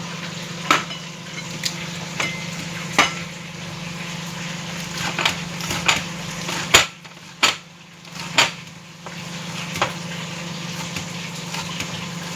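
Scattered knocks and clatters of kitchen utensils on a cutting board and pan, about one a second, over the steady sizzle of tilapia frying in hot oil.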